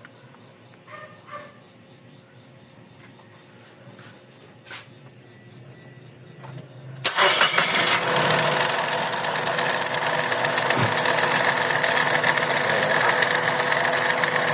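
Suzuki Celerio car engine, which has a misfire, starting about halfway in and then running steadily and loudly. Before it starts there are only a few faint clicks.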